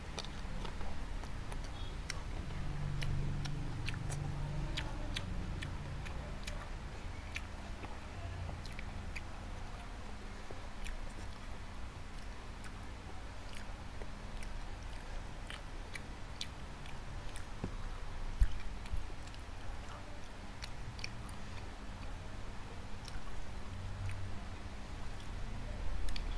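A person chewing a mouthful of sushi roll, with scattered small wet mouth clicks. A single louder low knock sounds about two-thirds of the way through.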